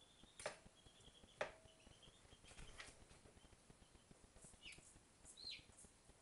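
Two sharp metal clicks about a second apart, each with a brief ring, as the metal mold halves and frame of a home-built injection molder clamp are handled and knocked together.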